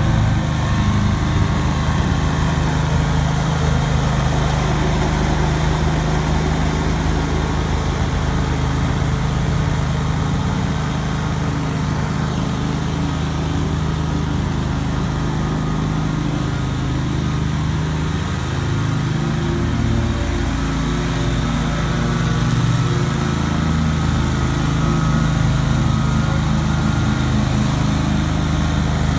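A 2003 Great Dane 52-inch stand-on mower's engine running steadily under load as the deck cuts through tall grass, its pitch wavering a little about halfway through.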